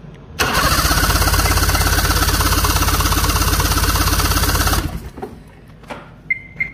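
Ski-Doo MXZ Renegade 600 SDI two-stroke twin cranked on its starter for about four seconds, an even, rapid pulsing that stops abruptly, without firing. It cannot catch: the fuel injectors are out of the engine on their rail, spraying into the open for a test.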